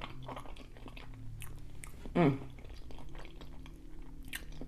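Close-up chewing of seafood boil food: soft wet mouth sounds and small scattered clicks, with a short falling vocal 'mm' about two seconds in.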